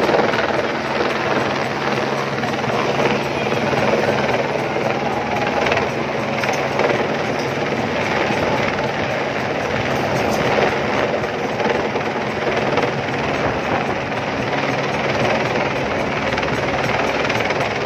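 Helicopter flying low overhead: a steady, loud rotor chop that goes on without a break.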